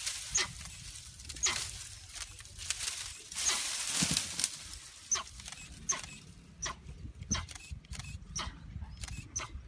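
A series of short, high-pitched animal calls, each falling steeply in pitch, coming roughly once a second, over crackling and rustling of leafy branches as the tiger climbs.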